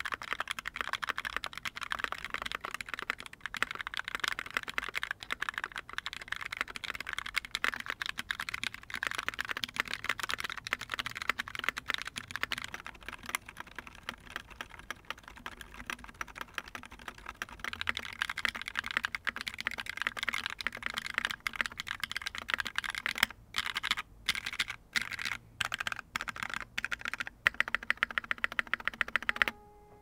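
Continuous typing on a Tastierarossa 60% mechanical keyboard with GMK keycaps, top-mounted with an aluminium plate and no foam. It starts on Green Snake switches and moves partway through to WS Silent Tactile switches. The typing is softer for a few seconds around the middle and breaks into short bursts with brief pauses near the end.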